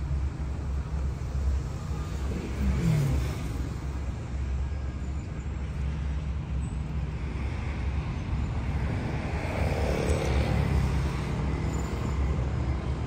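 Street traffic with a steady low rumble; a vehicle passes about ten seconds in.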